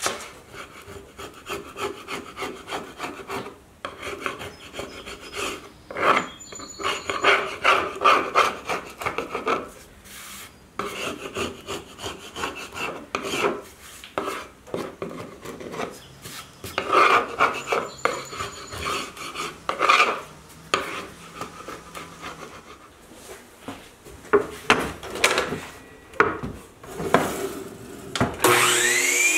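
Dried glue squeeze-out being scraped off the joints of a glued-up hardwood board, in irregular rasping strokes that come in bunches with short pauses. Near the end a Hitachi C12RSH sliding miter saw starts up with a rising whine.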